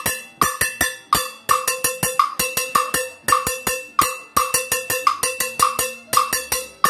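Timbale-bell pattern (campaneo de timbal) in 3-2 clave, struck with a stick on a hand-held stand-in for a timbale bell, together with the clave. It makes a quick, steady rhythm of sharp strikes, each ringing briefly.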